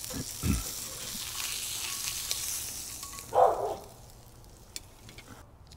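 Redfish fillet sizzling in butter in a hot cast-iron skillet, the frying hiss thinning out over the last two seconds as the fillet is lifted out of the pan. A short, louder sound breaks in about three and a half seconds in.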